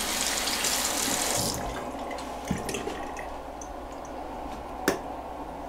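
Bathroom sink faucet running into the basin, strong for the first second and a half, then a lower steady flow. A single sharp click comes near the end.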